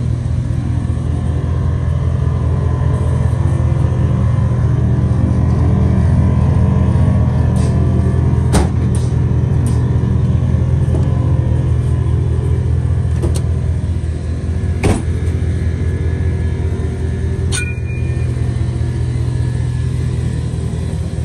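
Chevy Silverado pickup's engine idling steadily, with a couple of brief sharp knocks about a third and two-thirds of the way through.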